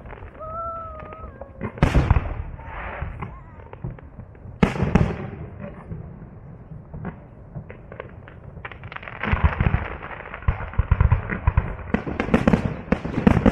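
Fireworks display: heavy shell bursts about two and five seconds in, then a dense stretch of rapid crackling bursts from about nine seconds on, over a low rumble.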